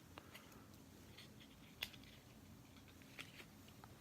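Faint clicks and light handling noise from a small Swiss Army pocket knife and its box contents being handled, with one sharper click a little under two seconds in.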